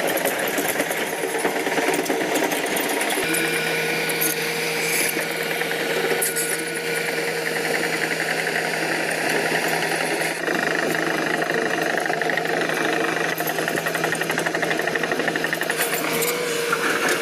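Hyundai Robex 215L crawler excavator's diesel engine running steadily as the machine travels on its steel tracks, with a rapid mechanical clatter.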